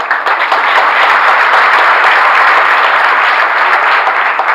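Audience applauding: dense, steady clapping that swells in at once and begins to die away near the end.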